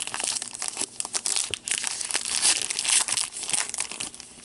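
Trading card pack wrappers crinkling as hockey card packs are torn open and handled: a dense run of quick crackles that thins out near the end.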